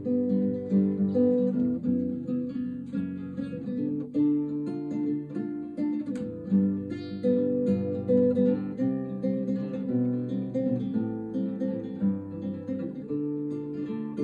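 Acoustic guitar played with plucked and strummed chords, a steady flowing pattern of changing chords.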